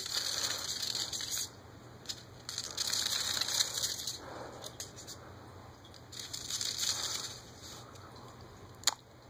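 A paper sheet rustling and scraping as a bearded dragon is grabbed and held down on it, in three bursts of about a second each, with a few short sharp clicks between.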